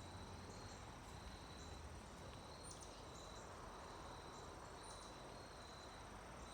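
Faint, steady insect trilling outdoors: several high-pitched tones held without a break, with a low hum beneath.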